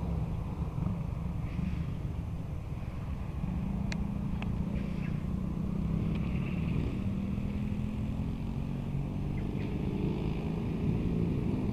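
A steady low rumble, with a couple of faint clicks about four seconds in.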